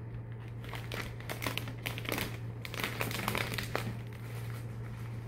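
Bouquet wrapping sheet crinkling and rustling as it is handled and folded into a butterfly-style wrap, with irregular small crackles.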